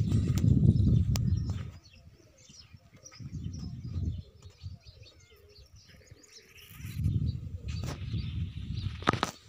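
Birds chirping outdoors, heard over three bursts of low rumbling wind buffeting the phone's microphone: one at the start, one about three seconds in, and a longer one near the end.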